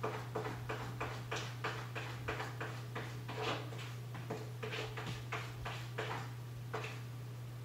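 A Persian cat digging in cat litter inside a plastic covered dome litter box: a run of quick scratching scrapes, about three a second, with a short pause around the middle.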